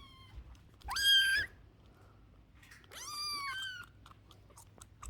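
Kittens meowing: two high-pitched meows, one about a second in and a longer one about three seconds in that drops in pitch near its end.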